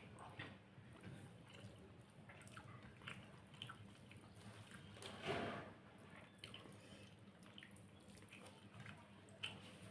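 Faint eating sounds: scattered small wet clicks of chewing, with one louder, longer sound about five seconds in, over a faint steady low hum.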